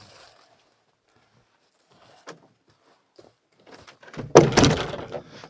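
A few light knocks, then about four seconds in a loud, hollow clatter lasting about a second: a Prospector 16 canoe's hull, carried overhead on a portage, bumping and scraping against a tree trunk.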